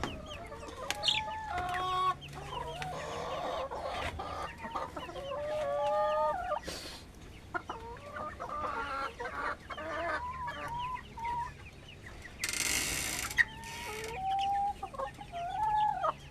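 Domestic hens clucking and calling, many short overlapping calls that rise and fall in pitch, with a brief rush of noise about twelve seconds in.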